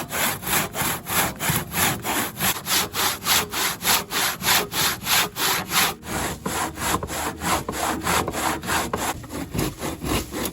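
Handsaw cutting through the wood of a fallen tree, with quick, even back-and-forth strokes at about three a second.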